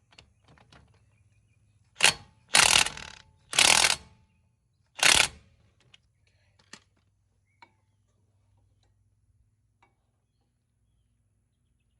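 Four short bursts of a power tool, done about three seconds in, as the brake caliper's bolts are run in. A few light metal clicks follow.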